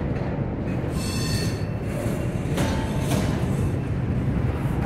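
Intermodal well cars of a passing freight train rolling by with a steady rumble of wheels on rail. There is a brief high squeal about a second in and a couple of sharp clanks near the middle.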